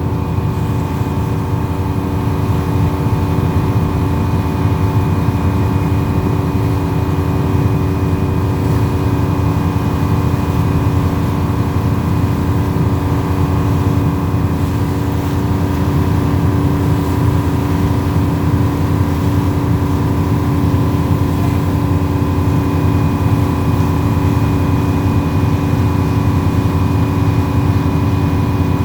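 Fishing boat's engine running steadily under way: an even drone with several held tones over a low rushing noise.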